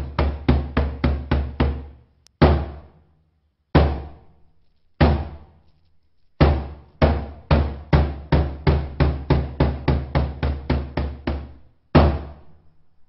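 Bedug, the large traditional Malay mosque drum, beaten with a wooden stick: a quickening run of strokes, three single strokes about a second apart, then another run that starts slow and speeds up, and two more single strokes near the end. Each stroke is deep and dies away quickly. This is the drumming sounded at village mosques to wake people for the pre-dawn sahur meal.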